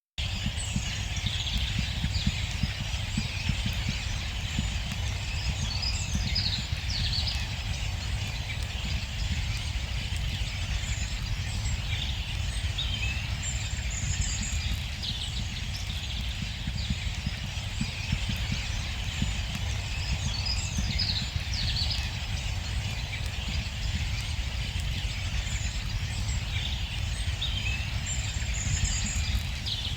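A distant mixed winter finch flock chattering without a break from treetops, with wheezing siskins, greenfinches, tinkling goldfinches and metallic-calling linnets among them. A steady low rumble runs underneath.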